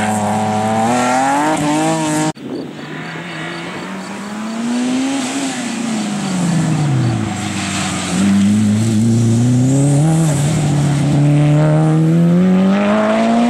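Race car engines at full throttle. First a BMW E30 accelerates away with its pitch climbing, then after a sudden cut about two seconds in a second car is heard. Its engine rises, drops steeply in pitch as it lifts off for a corner, and climbs again under hard acceleration.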